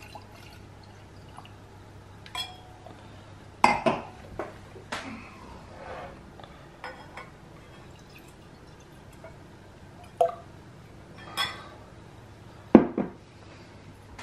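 Red wine poured from a glass decanter into a wine glass, with scattered sharp clinks and knocks of glass, the loudest a little under four seconds in and near the end.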